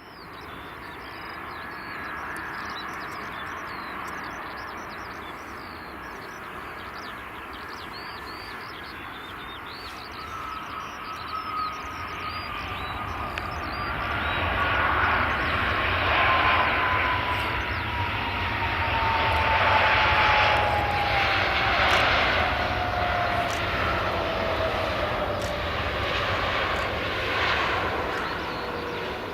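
Airbus A319's CFM56 jet engines on a landing approach, the roar growing louder as the airliner draws near and passes, with an engine whine that falls slowly and steadily in pitch.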